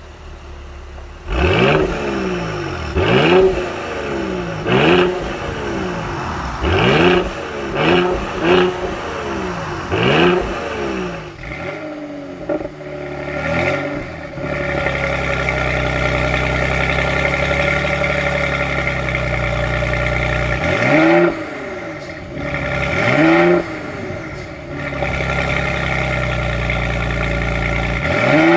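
Mercedes-AMG GLE 43 Coupé's twin-turbo V6 revved in about seven short blips in quick succession, then held at a steady engine speed for several seconds before two more blips, and steady running again near the end.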